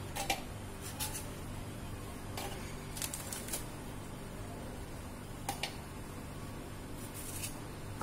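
Scattered light clicks and scrapes of a metal spoon scraping cream off Oreo biscuits and knocking against a plastic bowl, with biscuit halves handled over a plastic chopper jar, over a low steady hum.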